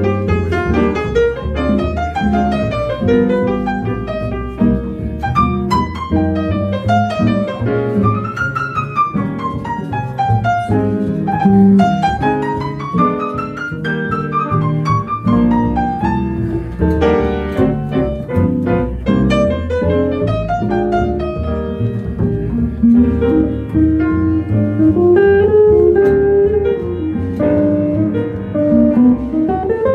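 Acoustic jazz combo playing an instrumental swing passage led by grand piano, with quick runs climbing and falling, over plucked double bass.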